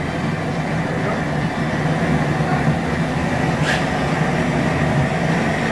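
Propane outdoor burner freshly lit under a large aluminium pot, its flame running with a steady rushing, rumbling noise on a low setting. A light click about two-thirds of the way through.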